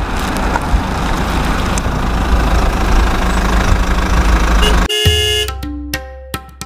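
Added vehicle sound effect: a loud, rough engine rumble, which gives way about five seconds in to a quick run of short horn-like electronic tones that start and stop abruptly.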